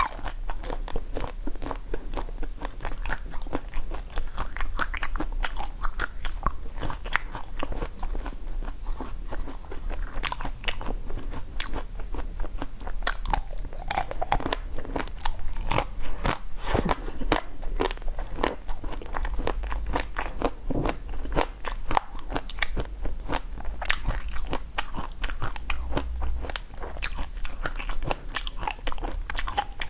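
Close-miked biting and crunching of frozen chocolate sweets, with crisp cracks coming thick and irregular, several a second, and chewing in between.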